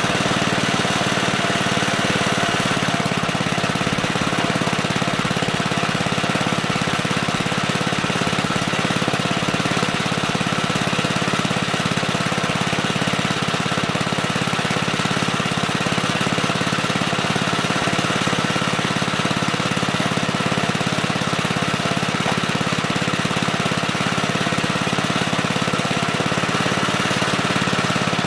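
Gravely Terramite compact backhoe's engine running steadily.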